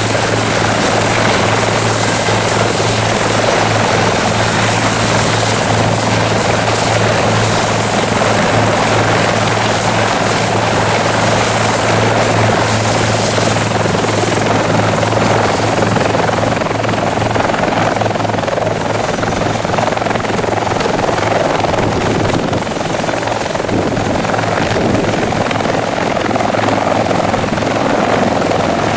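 Bell 412 helicopter running, its turbine engines and rotor making a steady, loud noise with a high turbine whine that rises slightly in pitch about halfway through.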